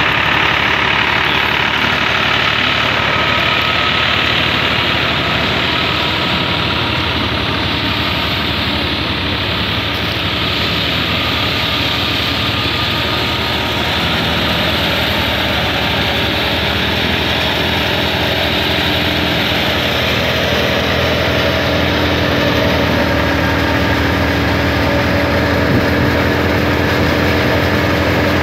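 Stationary wheat thresher running steadily as wheat is fed through it. It is driven through its PTO shaft by a New Holland 480 tractor's diesel engine working under load.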